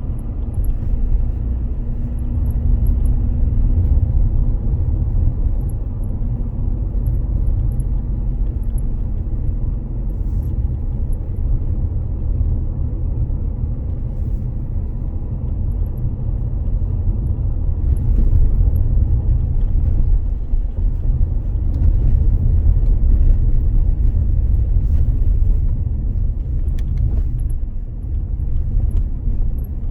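Road and engine rumble inside the cabin of a Mitsubishi Delica D:5 on the move, with faint intermittent creaking from the dashboard: the Alpine BigX11 navigation unit rubbing against the air-conditioning panel beside it.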